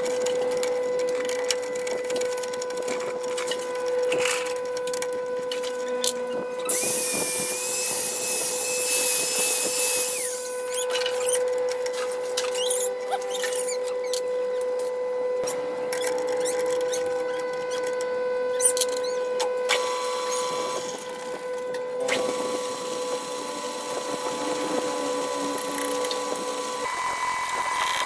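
Workshop power tool running with a steady whine, with a harsh, high-pitched stretch of cutting or grinding noise about seven seconds in that lasts about three seconds.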